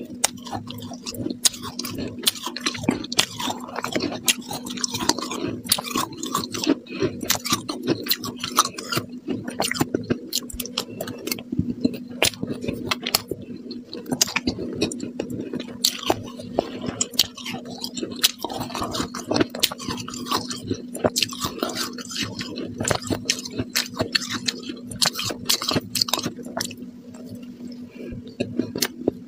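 Close-up soft crunching of fluffy shaved ice (cotton ice) being chewed, a dense, irregular crackle of small crunches, over a steady low hum.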